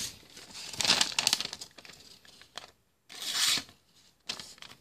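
Balisong blade slicing through a thin material while its sharpness is tested: a rasping cut about a second in, then two shorter cuts near the end.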